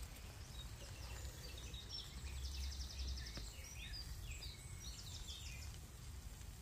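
A small bird singing in the background: a quick trill of repeated high notes, then scattered chirps and another short trill, over a low steady rumble.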